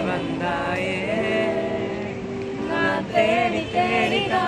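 A group of young people singing together, men's and women's voices mixed, with a woman's voice to the fore and some hand clapping.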